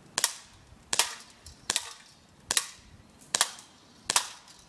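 Full-metal Beretta M84 Cheetah BB pistol fired six times at a steady pace, about one shot every 0.8 s, each a sharp crack. These are the last shots before the magazine runs empty.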